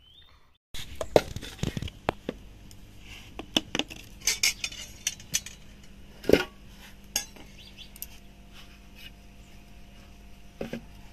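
Stainless-steel pot and bowl clinking and knocking as they are handled on a hard floor, a string of sharp strikes with some ringing. It starts abruptly under a second in, and the loudest knock comes about six seconds in.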